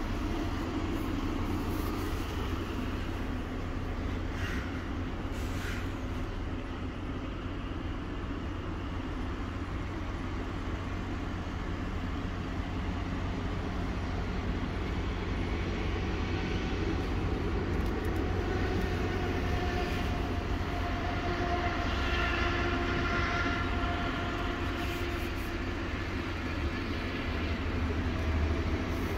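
Scania 770S V8 diesel engine running, heard from inside the truck's cab as a steady low rumble. A faint, higher whine joins in for a few seconds midway.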